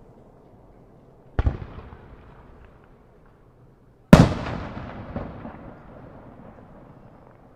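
Two aerial firework shells bursting, a smaller boom about a second in and a much louder one past the middle. Each boom is followed by a long fading echo.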